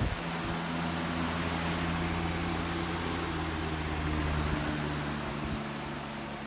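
Lasko 3733 box fan running on high: a steady rush of air over a low motor hum, with a click right at the start. The low hum eases slightly about five and a half seconds in.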